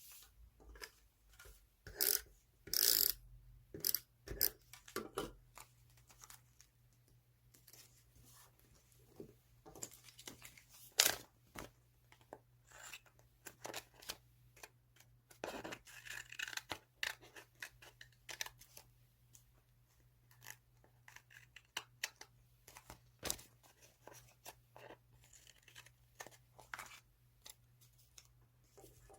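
Scissors cutting magazine paper, with paper being handled: an irregular run of crisp snips and crackles, loudest in clusters about two to three seconds in and around eleven seconds.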